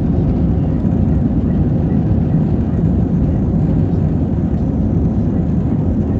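Airbus A320 on its takeoff roll, heard from inside the passenger cabin: a loud, steady, deep rumble of the engines at takeoff thrust and the wheels running on the runway.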